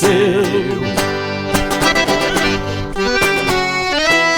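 Sertanejo music: the last sung word held with vibrato, then an instrumental break between verses, with an accordion-like melody over guitar strums.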